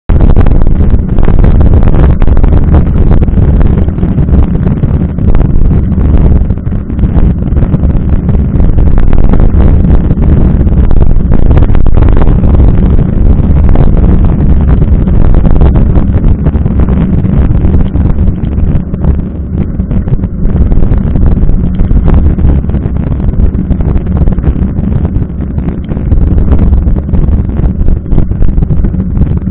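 Wind buffeting and road rumble on a camera mounted at a mountain bike's front wheel, riding on wet asphalt: a loud, steady low rumble that fluctuates throughout.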